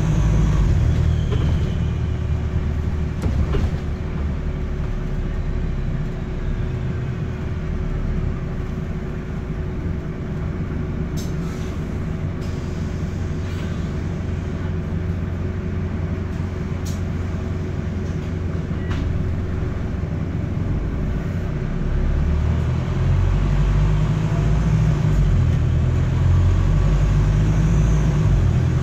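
Wright StreetDeck double-decker bus's Daimler diesel engine and exhaust heard from the upper deck while under way, a low rumble with a steady hum and a few sharp rattles. The rumble is heavier at the start and again from about two-thirds of the way through, and the bus has a blowing exhaust, an exhaust leak.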